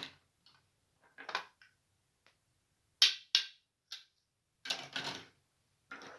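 Small plastic toy kitchen pieces being handled: a string of light clicks and taps, two sharp clicks about three seconds in, and a short clattering rattle near five seconds.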